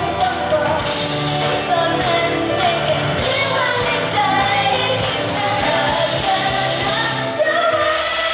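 Live pop song with female voices singing over band accompaniment, heard through the stage PA.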